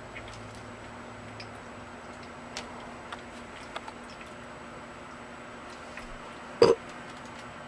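Two kittens play-fighting on carpet: faint scattered scuffs and ticks over a steady low hum, with one short, loud thump-like sound about two-thirds of the way through.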